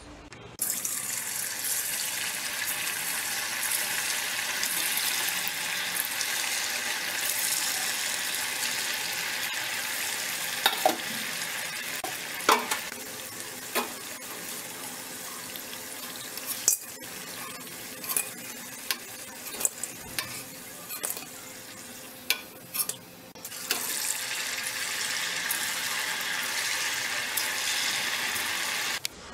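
Hot oil sizzling and bubbling in a steel kadai as potato and rice-flour snacks deep-fry, with scattered clinks of a metal slotted spoon against the pan. The sizzle eases for a few seconds after the middle and then comes back loud.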